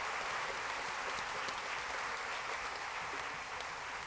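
A concert audience applauding at the end of a song, a dense patter of clapping that slowly fades.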